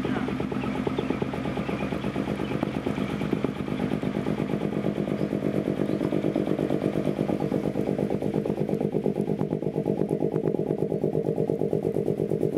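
Pneumatic pipe-bursting impactor hammering underground, a fast, even pounding of many blows a second over the steady drone of a running engine.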